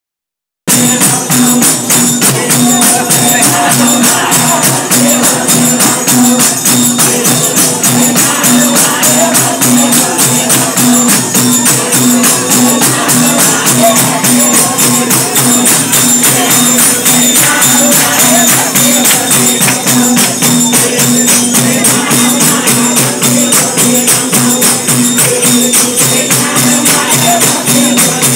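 A group singing a Hindu devotional bhajan to fast, steady jingling percussion, over a steady low tone. It starts about half a second in.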